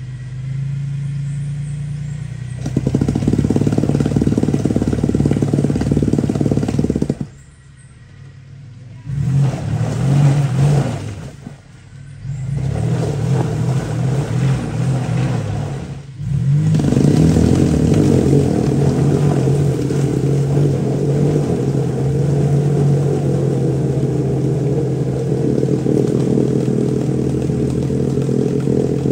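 Mitsubishi Montero's engine running and revving under load off-road. It falls away sharply a few times in the first half, then holds steady and loud.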